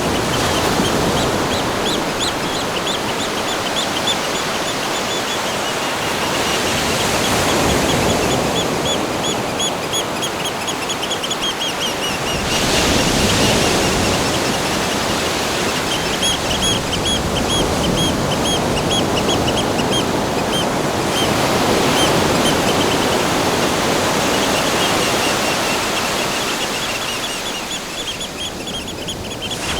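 Steady rushing water with runs of rapid, high-pitched chirping trills repeating over it, in a natural outdoor ambience recording.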